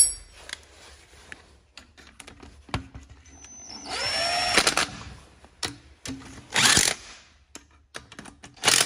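Cordless drill run briefly about four seconds in, its motor whine rising in pitch as it spins up and then cutting off, followed by two shorter bursts later on.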